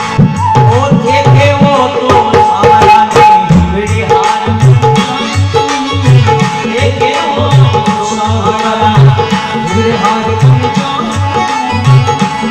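Dholak drumming in a brisk, steady folk rhythm, with a sustained melodic note held above the beat.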